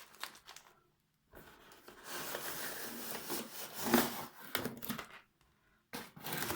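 Packaging being opened by hand: paper or plastic torn and crinkled in a continuous rustle through the middle, with a loud sharp crackle about four seconds in and a few scattered crackles near the end.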